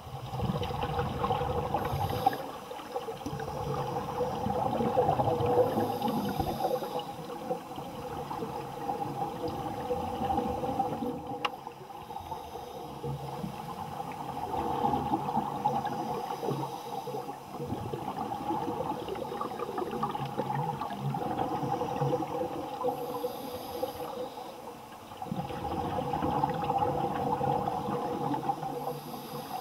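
Scuba divers breathing through their regulators underwater, the exhaled air bubbling and gurgling in slow swells every several seconds, over a steady low hum.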